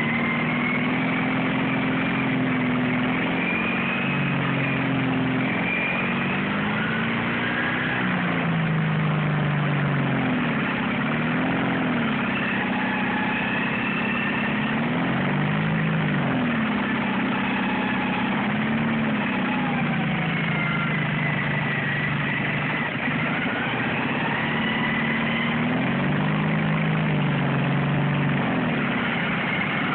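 Small engine of a riding lawn tractor running, its pitch rising and falling every second or two as the throttle and speed change.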